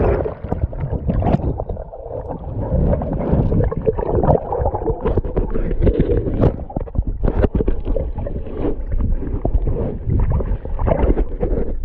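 Muffled swimming-pool water churning and gurgling around a head-mounted camera that has gone into the water with a diver, with many irregular splashes and knocks.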